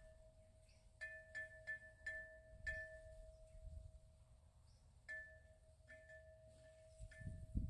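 Faint chime tones struck at irregular intervals, the same couple of notes ringing over and over, with a low rumble of wind on the microphone.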